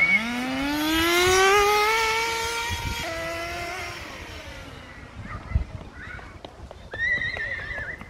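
Toy remote-control car's motor whining as it speeds up, rising steeply in pitch over about two seconds, then levelling off and fading as the car moves away. A short, high-pitched cry comes near the end.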